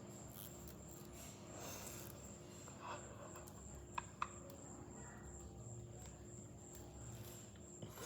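Faint steady background noise with a thin constant high tone, broken by two short sharp clicks a fraction of a second apart about four seconds in.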